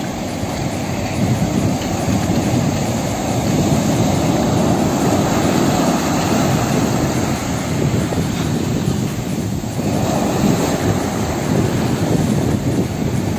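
Breaking surf and rushing wash, with wind buffeting the microphone in a steady deep rumble.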